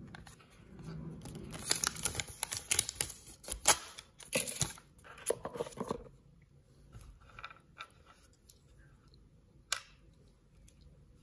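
Paper instruction leaflet crinkling and rustling as it is handled, dense crackles for about four seconds. Then sparse small plastic clicks as the pieces of a toy crocodile figure are handled and fitted together, with one sharper click near the end.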